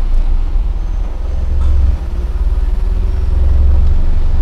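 Honda Fit engine idling in drive, held under load against the automatic transmission, a steady low rumble heard from inside the cabin. The car has a mechanically failing fuel pump.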